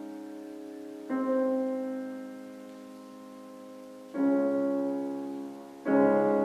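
Piano accompaniment playing slow chords, each struck and left to ring and fade: a chord dying away at the start, then new chords about one, four and six seconds in.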